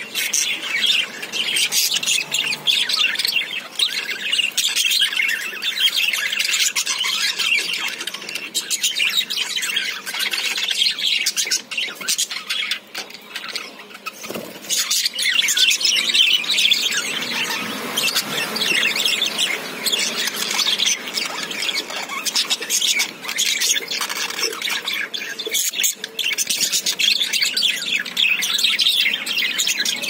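Budgerigars chirping and chattering steadily, a dense stream of quick high calls overlapping without pause.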